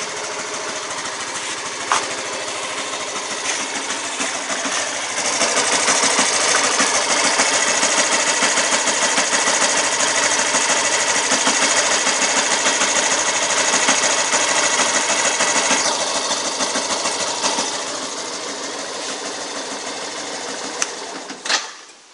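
Yamaha FZi motorcycle engine running with the noise fault its owner is chasing, a fast mechanical clatter. From about five seconds in it gets louder and busier under more throttle, eases back after about sixteen seconds, and stops suddenly near the end.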